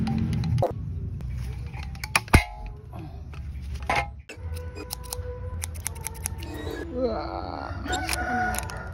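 Scattered clicks and knocks, with one sharp crack about two and a half seconds in. After a brief break, soft background music with a few snips of scissors near the end.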